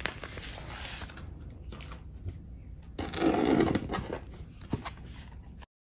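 Hands handling a page in a plastic sheet protector and a deck of tarot cards on a wooden table: rustling and sliding, loudest about three seconds in, with a single tap near the end before the sound cuts off suddenly.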